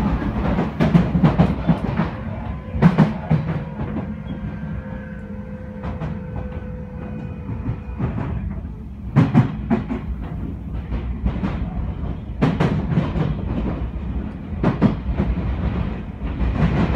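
Odakyu 3000 series electric train running, heard from inside the passenger car. There is a steady rumble, and bursts of clacking every few seconds as the wheels pass over the track.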